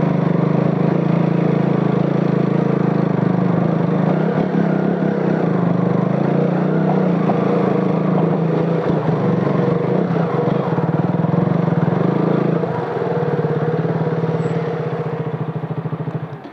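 Motorcycle engine running steadily at low speed on a rough stone track, with a low, even hum and a few knocks from the bumps midway. The sound drops away suddenly near the end.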